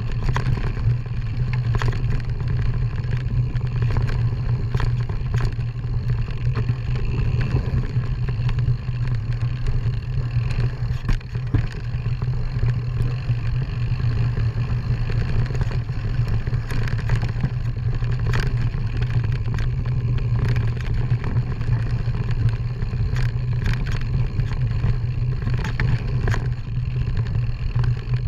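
Off-road vehicle driving over a rough dirt track: a steady low engine drone with frequent knocks and rattles as it jolts over the ground.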